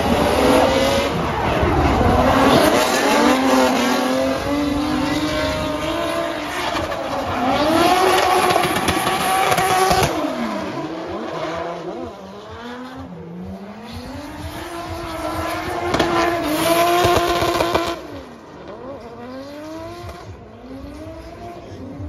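Turbocharged Toyota 2JZ inline-six in a drift BMW E36, its revs climbing and dropping again and again as the car slides, with the rear tyres squealing. It is loudest through the first half and again briefly near the end, quieter between.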